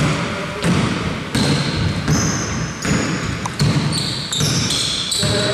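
Basketball bouncing on the court in a steady dribble, about one bounce every two-thirds of a second. From about two seconds in, players' shoes squeak on the floor.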